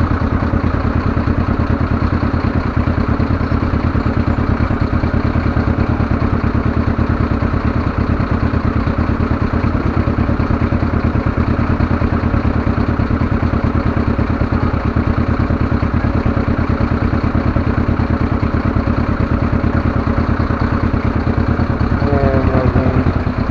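Motorcycle engine running steadily close to the microphone, an even rapid firing pulse with no clear revving.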